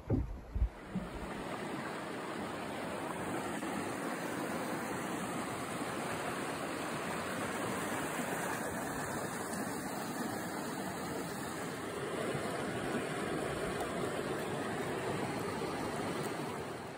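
Stream rapids rushing over a granite ledge: a steady rush of water, with a couple of brief knocks right at the start.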